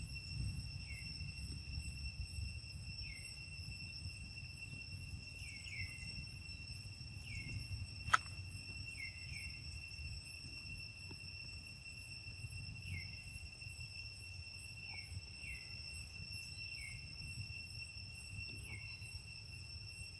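Steady high-pitched insect drone, with short falling chirps every second or two and a single sharp click about eight seconds in.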